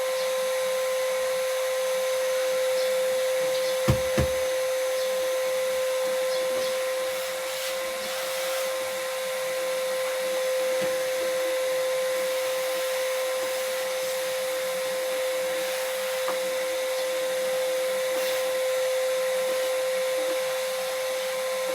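A small electric fan motor runs steadily: one even whine over a rushing of air, with two short knocks about four seconds in.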